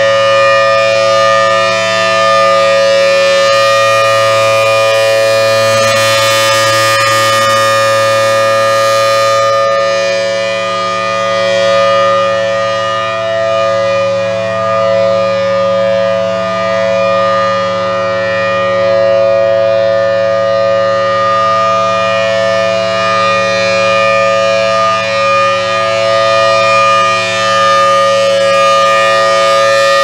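Federal Signal Thunderbolt 1000T outdoor warning siren sounding a steady tone of two notes at once, held at a constant pitch. Its rotating horn makes the loudness swell and dip slightly as it turns. The siren is very loud and healthy.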